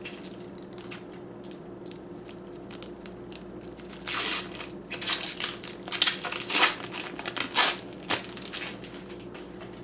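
Irregular crinkling and crackling of packaging being handled, in bursts that cluster in the middle of the stretch.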